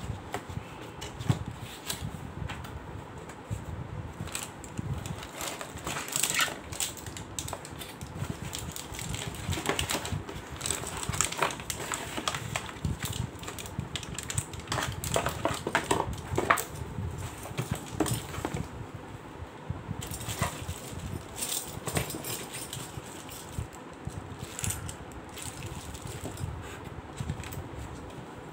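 A cardboard box being opened and unpacked by hand: flaps and a cardboard insert rustling and scraping, a plastic bag crinkling, and irregular clicks and knocks as a small frying pan and its parts are lifted out and set down.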